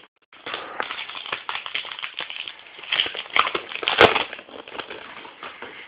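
Rustling and crinkling of baseball cards and their pack wrappers handled close to the microphone, full of small clicks, with one sharp click about four seconds in.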